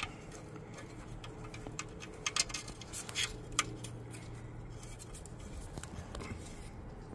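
A few light metallic clicks and scrapes from a ratchet and socket working the last mounting bolt of a truck's ABS module, over a faint steady hum.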